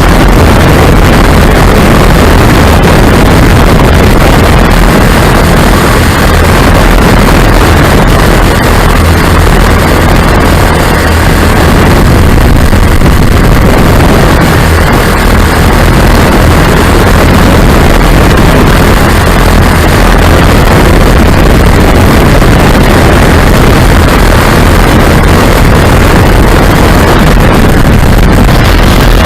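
Lazair ultralight's twin small engines droning steadily in flight, under heavy wind rush buffeting the microphone.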